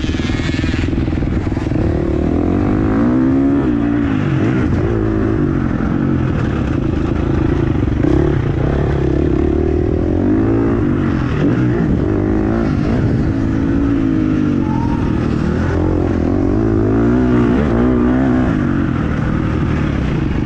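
Motocross bike engine heard from the rider's helmet camera, revving hard and easing off again and again as the throttle is worked through the corners and over the rises. Its pitch climbs and drops every second or two.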